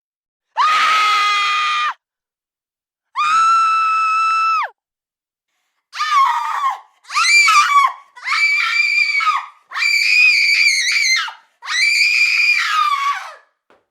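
A woman screaming in terror, high-pitched and loud. There are two long, held screams at a steady pitch, then five shorter screams in quick succession, each cut off by a brief silence.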